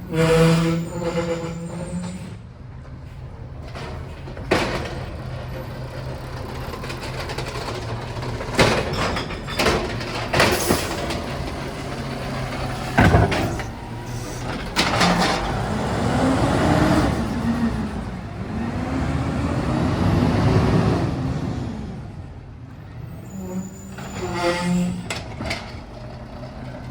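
Garbage truck working a pickup over its running engine, with several sharp clunks and bangs of the bin and lifting gear. About two-thirds of the way in, a hydraulic whine rises and falls for several seconds. A brief pitched tone sounds at the start and again near the end.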